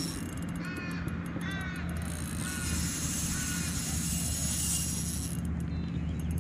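A crow cawing, four drawn-out calls spread over the first four seconds, over a steady low hum.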